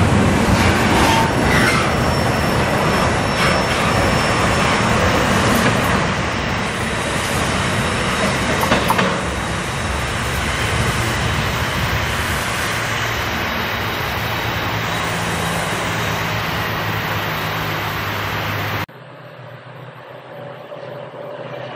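Double-stack container freight train rolling past, its steel wheels rumbling and clanking on the rails with a thin squeal here and there, slowly growing quieter as it draws away. About nineteen seconds in it cuts off abruptly to a much quieter faint steady sound.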